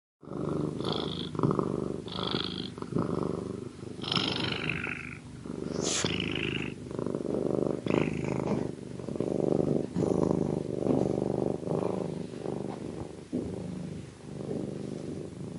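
Domestic cat purring close up, a continuous low buzz that swells and eases about once a second as the cat breathes in and out. A few brief higher, brighter sounds come in the first half.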